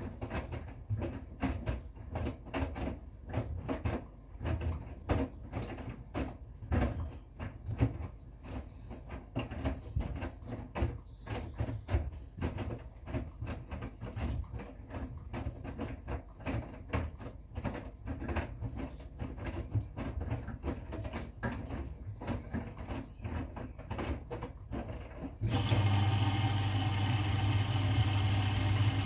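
Front-loading washing machine in its wash cycle: the drum tumbling wet laundry, with repeated sloshes and soft thuds of the load dropping over a low motor hum. Near the end a louder, steady machine hum comes in suddenly.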